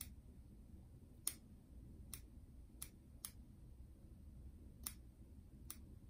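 Small mustache scissors snipping mustache hairs: about seven quiet, sharp snips at irregular intervals, the loudest about a second in.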